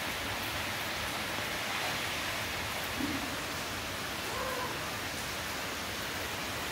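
Steady, even hiss with no distinct events, faint short sounds barely rising above it about three and four and a half seconds in.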